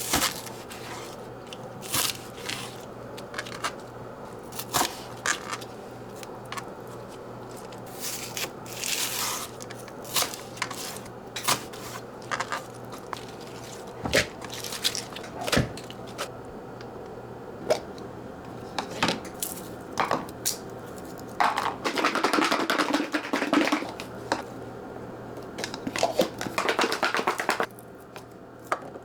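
Kitchen food-preparation handling: scattered light taps and knocks, with two short stretches of tearing or crinkling late on.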